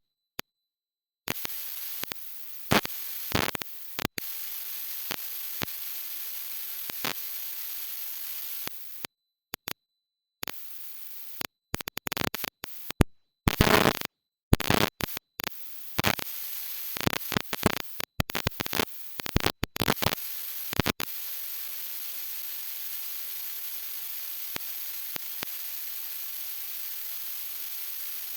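Steady high hiss like static, broken by many sharp clicks and crackles and cutting out to silence several times, the crackling busiest in the middle and gone for the last several seconds.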